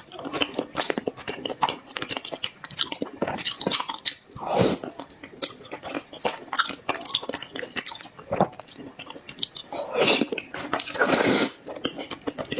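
Close-miked eating of zongzi, sticky-rice dumplings: biting and chewing with many quick wet clicks of the mouth. A longer, louder mouth sound comes about four seconds in and another near the end.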